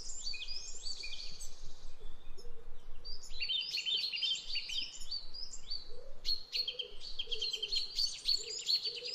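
Birds singing: rapid runs of high chirps and twitters, with a short lull about two seconds in before the song picks up again.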